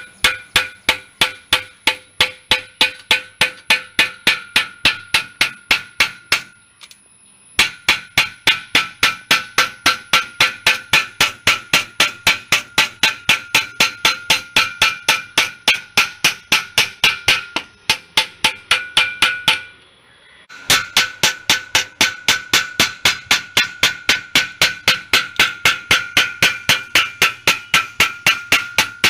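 Thin powder-coated iron (GI) sheet being beaten again and again with a wooden stick to bend its edge over a support, about three blows a second, each blow giving a short metallic ring. The blows stop briefly twice, about seven seconds in and again about twenty seconds in.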